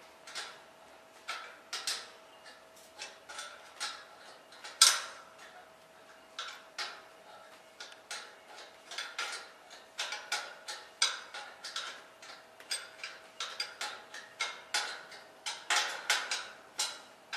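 Hand ratchet socket wrench clicking in short, irregular strokes as it tightens the gas strut's mounting bolt on a steel scooter rack, with one louder metal clank about five seconds in.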